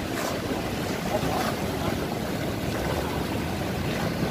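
Surf breaking and washing over a sandy beach, with wind rumbling on the microphone.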